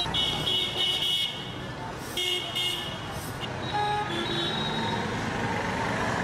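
Street traffic with car horns honking: several short horn blasts in the first four seconds or so, over a steady background of traffic noise.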